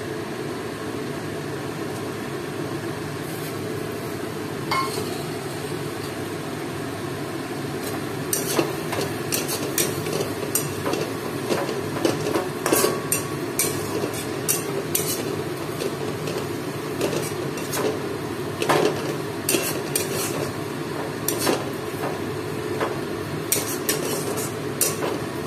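Flat spatula scraping and knocking against a metal kadai as onions, ginger-garlic paste and slit green chillies are stir-fried, the masala being cooked down (kashano) for biryani. The knocks come irregularly, several a second, from about a third of the way in, over a steady low hiss.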